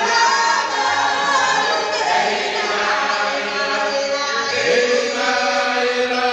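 A church congregation singing a hymn together in many voices, with held notes and some voices sliding in pitch.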